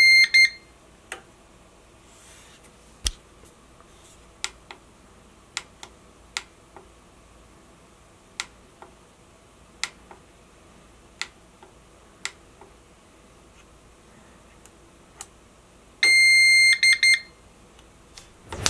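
CyberPower OR500LCDRM1U rackmount UPS beeping as its power button is held: a steady high beep followed by a few quick short beeps, right at the start as it switches on and again about sixteen seconds in as it switches off. Faint scattered clicks come in between.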